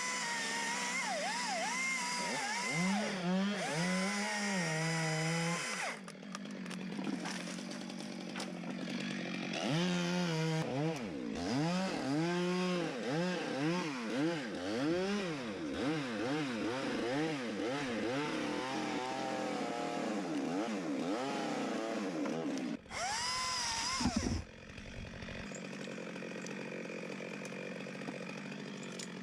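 Two-stroke chainsaw cutting wood, its engine pitch repeatedly rising and falling as it is revved and loaded in the cut. About three-quarters of the way through, the sound briefly cuts out, then settles to a lower, steadier level.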